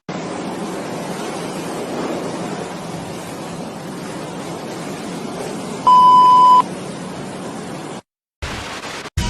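A steady rushing noise, with one short electronic beep about six seconds in, a single steady tone louder than everything else. The noise cuts off near the end.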